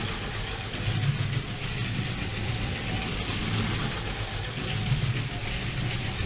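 Lego Power Functions train motor whirring at full speed as the Lego Cargo Train runs laps, its plastic wheels rolling over plastic track. A steady running sound without a break.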